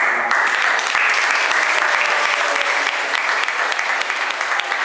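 A roomful of schoolchildren applauding, breaking out all at once into steady, dense clapping.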